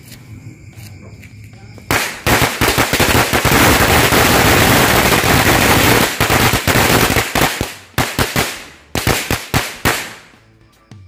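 Two bundles of mercon korek, small firecrackers, going off together. About two seconds in, a dense, rapid crackle of bangs starts, then thins into scattered separate bangs that stop near the end.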